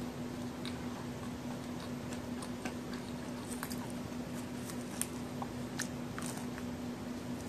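Chewing and biting a large homemade chocolate and raisin cookie: small crisp crunches and crackles that grow busier in the second half, with the sharpest crunch about five seconds in. A steady low hum sits underneath.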